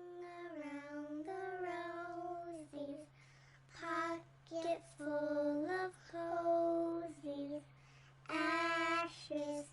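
A high voice singing a simple tune in short held phrases separated by brief pauses, over a steady low hum.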